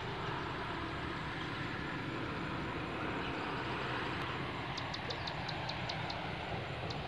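Steady rushing of flowing river water, with a quick run of high chirps about two-thirds of the way through.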